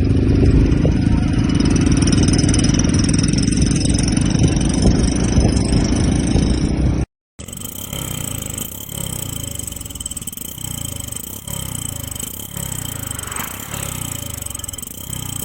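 Hero Splendor Plus motorcycle's single-cylinder engine running loud through a modified GCL aftermarket silencer. The sound cuts off about seven seconds in, then picks up quieter with the engine revved over and over, about once a second.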